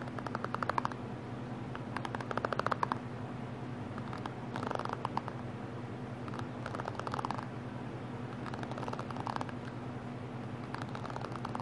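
Fingers flicking across the pins of a paddle hairbrush, each stroke a quick run of clicks, about six strokes a couple of seconds apart, over a steady low hum.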